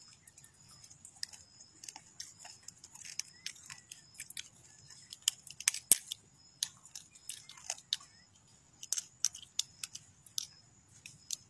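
Small crab's shell crackling and clicking as the top shell is pried off by hand: a scatter of sharp, irregular clicks, the loudest about six seconds in.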